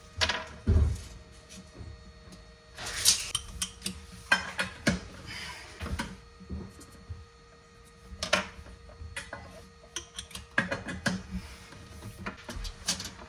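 Irregular clicks, taps and knocks of copper pipe and hand tools being handled and measured against a cabinet panel, over a faint steady hum.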